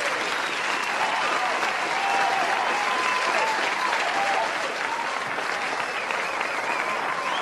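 A group clapping steadily after an a cappella song, with voices calling and cheering over the applause.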